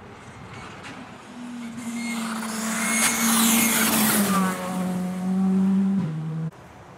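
Skoda Fabia R5 rally car, a 1.6-litre turbocharged four-cylinder, approaching and passing close at speed under load, with a loud rush of tyre and road noise as it goes by. The engine note drops in pitch just after it passes, and the sound cuts off abruptly about six and a half seconds in.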